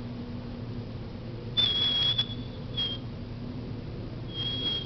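Dog whining in thin, high-pitched whines: a half-second whine about a second and a half in, a short one near three seconds, and another starting near the end.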